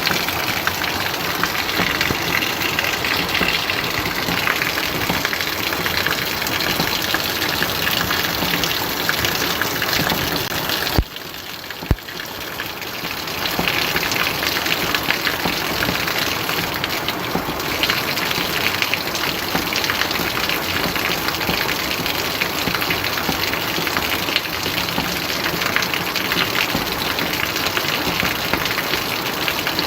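Steady, heavy rain: a dense, even hiss. About eleven seconds in, the rain dips quieter for a couple of seconds, with two sharp clicks, then builds back to full strength.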